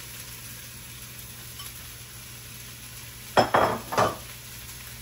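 Chopped onion and bell pepper sizzling steadily in hot oil in a pan as they are stirred, with two short, louder scrapes of a utensil against the pan about three and a half and four seconds in.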